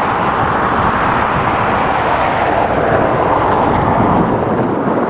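Jet airliner engine noise: a loud, steady rush that swells slightly through the middle.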